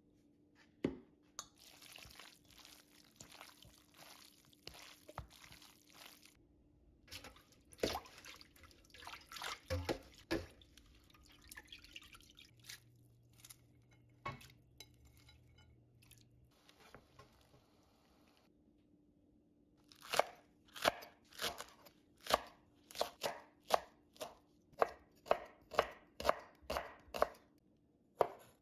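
Cleaver chopping garlic cloves on a wooden cutting board: a regular run of sharp knocks, about two a second, starting about two-thirds of the way in. Before that, quieter scattered knocks and handling noises.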